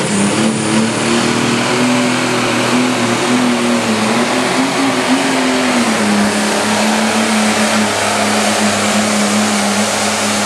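Turbocharged diesel engine of a light-limited pro stock pulling tractor running at full throttle under heavy load as it drags the weight-transfer sled. Its pitch wavers up and down, then dips and holds steadier about six seconds in.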